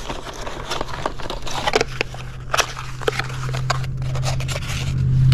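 Clicking and crackling of parts packaging being handled, with a steady low hum underneath that grows louder toward the end.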